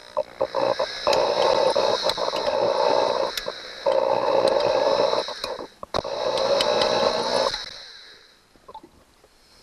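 Electric drill boring into a broken, rust-seized steel screw stud on an outboard motor, running in three bursts of a second or two with short pauses, then stopping about three-quarters of the way through.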